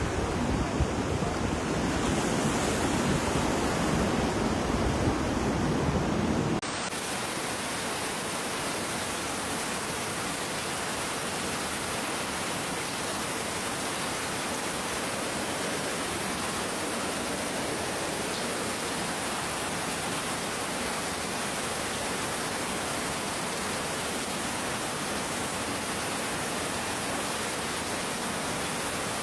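Ocean waves washing in, cut off abruptly about six and a half seconds in. A steady, even hiss of pouring rain takes over and carries on unchanged.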